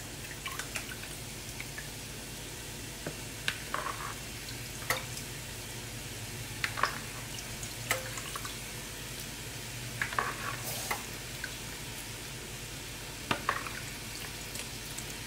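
Pieces of precooked chicken thigh and diced bell pepper, celery and onion sizzling in a skillet on the stove: a steady frying hiss with scattered pops and crackles every second or so.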